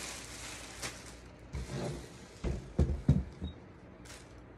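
A brief rustle of plastic wrap, then a Moxi Panther roller skate being handled and set down on a tabletop: a cluster of dull knocks and thuds from its wheels and plate about two to three seconds in.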